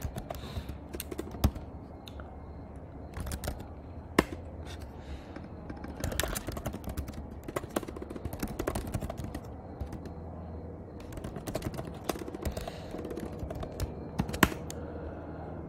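Typing on a computer keyboard: runs of quick key clicks with pauses between them, as a short question is typed out.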